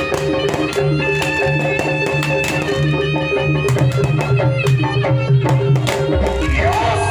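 Music with hand-drum percussion over sustained instrumental tones. About six seconds in it changes to a new section with a deeper bass and a sliding melody line.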